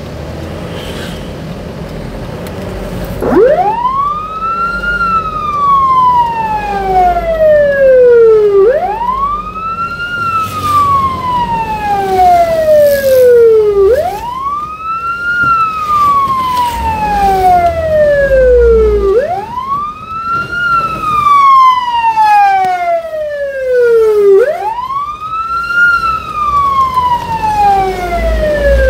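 Fire truck's electronic wail siren heard from inside the cab, switching on about three seconds in. Each cycle sweeps up quickly and then falls slowly, repeating about every five seconds, with the truck's engine running underneath.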